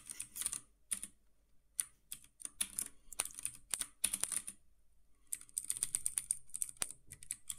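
Computer keyboard typing: scattered single keystrokes at first, a short pause near the middle, then a quick run of keys for about two seconds.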